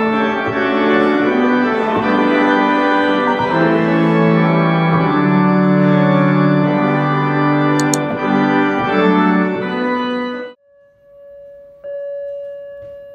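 Organ music playing slow, sustained chords that cut off suddenly about ten seconds in. It is followed by a steady single-pitched tone that gets louder shortly before the end.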